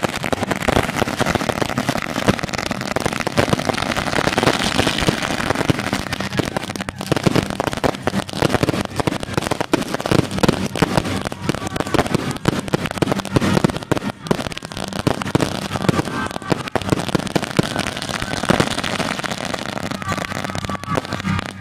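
A long string of firecrackers going off in a dense, unbroken crackle of rapid bangs.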